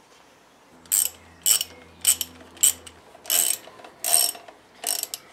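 Socket ratchet wrench clicking as a bolt is run in: seven quick bursts of ratcheting, one with each back-swing of the handle, about every half to three-quarters of a second.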